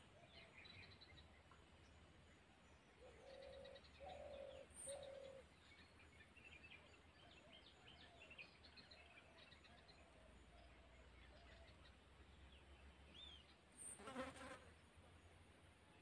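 Faint bird ambience: scattered high chirps, with three short low notes about three to five seconds in and a brief scratchy noise near the end.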